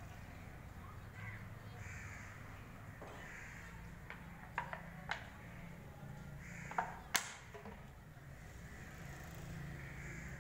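Birds cawing several times, faint, with a few sharp clicks near the middle and a steady low hum underneath.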